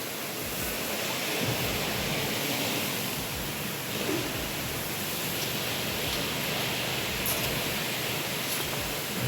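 Steady rushing noise with a few faint small knocks.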